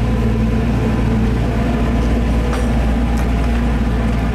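A steady low mechanical drone, like an engine running at an even speed.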